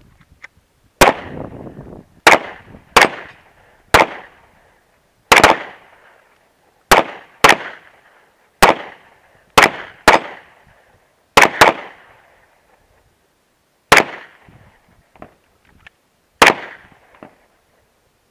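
Two handguns, a Smith & Wesson M&P Shield and a Glock 17, firing about fifteen single shots at an irregular pace. Each shot is a sharp crack that dies away quickly, and two shots come close together a little past the middle.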